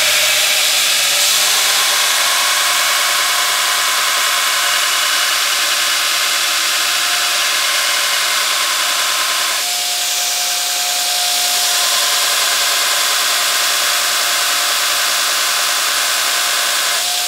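Belt grinder grinding a bar of 1080 high-carbon steel for a spark test: a steady, loud hiss of the abrasive belt against the steel. About ten seconds in, the sound shifts and a steady whine joins it.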